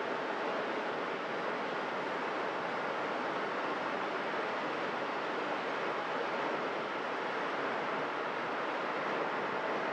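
Steady road and wind noise of a car travelling at highway speed, heard from inside the cabin.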